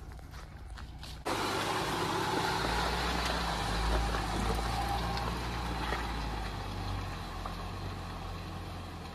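Jeep Gladiator's engine running at low speed close by: a low rumble that grows louder a couple of seconds in and then eases off. All the noise jumps up suddenly about a second in.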